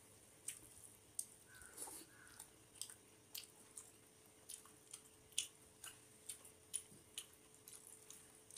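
Fingers mixing rice with dal and curry by hand on a metal plate: faint, irregular wet squishes and clicks, about one or two a second.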